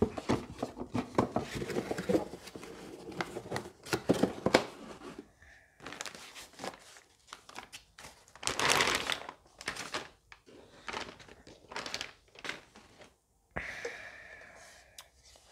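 Packaging being handled: a plastic bag crinkling and white foam end caps rubbing and knocking as an inverter is pulled from its cardboard box and unwrapped. Many short rustles and knocks, with one longer, louder rustle near the middle.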